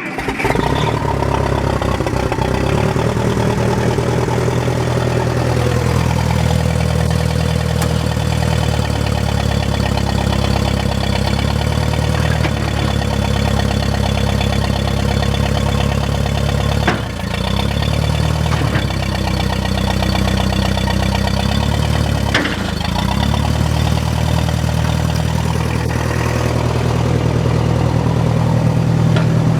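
1964 Case 530 Construction King loader backhoe engine, just started cold on a little choke, running at a fast idle that settles lower after about five seconds. It dips briefly twice in the middle and picks up a little near the end.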